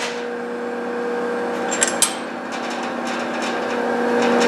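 Sunnen rod cap grinder running with a steady motor hum, a couple of sharp clicks about two seconds in, then the wheel grinding louder as the parting face of a factory GM connecting rod is fed across it, taking about two thousandths off.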